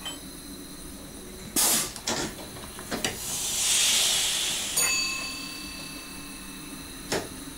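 Compressed air hissing in an SGM Sprinter train's cab: a few short sharp blasts, then a longer hiss that swells and fades over about two seconds, and one more short blast near the end. A click in the middle brings in a faint steady tone lasting about two seconds.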